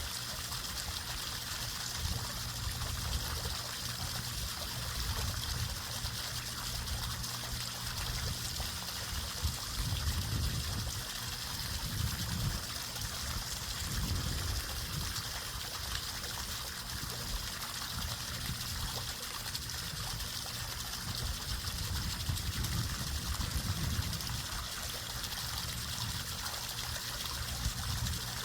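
Water trickling and splashing continuously, with an uneven low rumble and a steady high hiss, as a small battery-powered RC catamaran runs through it.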